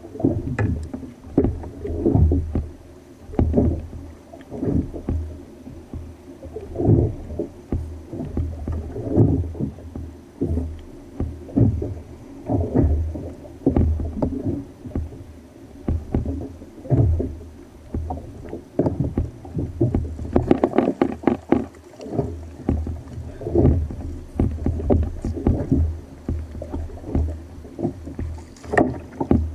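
Small waves slapping and knocking against the hull of a sit-on-top fishing kayak: irregular low thuds every second or so, with a run of sharper, brighter slaps about twenty seconds in.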